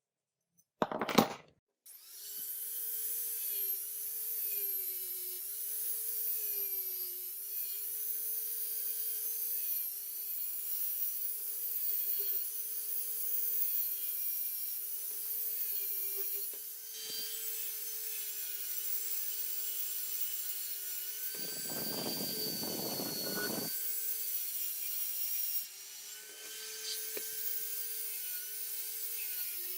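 Small high-speed rotary tool running with a steady whine whose pitch dips and recovers again and again as it is pressed against a workpiece. A louder rough scraping patch comes about three-quarters of the way through.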